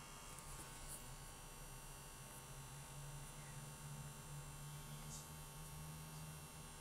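Faint steady low electrical hum with background hiss, broken by a couple of faint ticks: room tone picked up by a phone's microphone during a screen recording.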